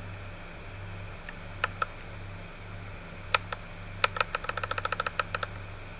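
Keys on a HEXGEARS X3 TKL mechanical keyboard with Kailh Box Red linear switches being pressed to cycle its lighting modes. There are two presses about a second and a half in and two more near the middle, then a quick run of about a dozen presses.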